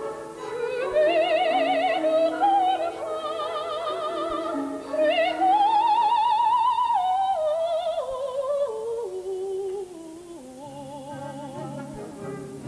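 Operatic soprano with wide vibrato singing a soaring solo line over orchestra. She climbs to a long-held high note about five seconds in, then steps down. Near the end the voice fades into softer, lower held chords.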